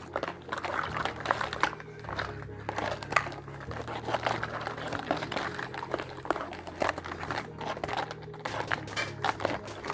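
Plastic packaging crinkling, with irregular light clicks and taps from handling small toy kitchen pieces, over soft background music.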